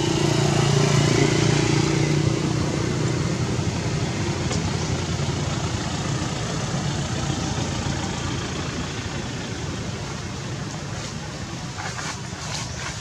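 A motor vehicle's engine running nearby, loudest about a second in and slowly fading, with a few light clicks near the end.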